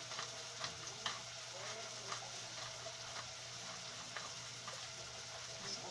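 Papaya and tomato sizzling softly as they sauté in a glass pot, with a few light clicks from a spoon and the pepper shaker at the pot.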